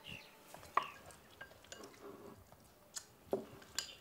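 Chopsticks clinking against bowls and soft eating sounds at a family meal: a handful of short sharp clicks, the loudest about a second in and in the last second.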